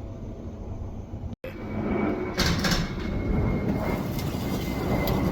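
Low jet aircraft rumble mixed with wind buffeting the microphone. The sound cuts out for an instant about a second and a half in, then comes back louder with a faint steady whine and gusty surges.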